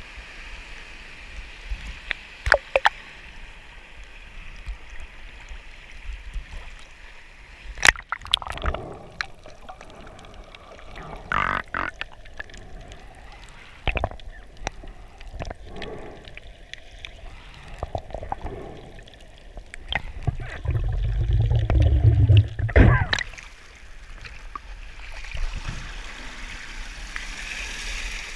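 Seawater sloshing and splashing around a camera as it dips between the surface and underwater, with muffled bubbling and scattered sharp knocks. A loud low rush lasts about two seconds about three-quarters of the way in.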